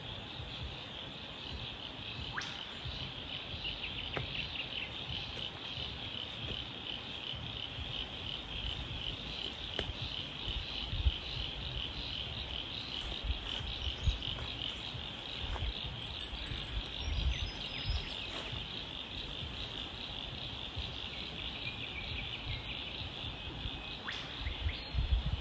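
Steady, high, finely pulsing chorus of calling animals, with low rumbles and a few soft thumps now and then, the loudest about eleven seconds in.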